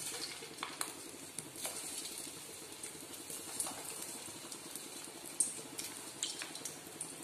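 Paneer-potato balls deep-frying in hot oil in a steel pan: the sizzling starts suddenly as the first ball goes in and carries on as a steady hiss with scattered sharp pops and crackles.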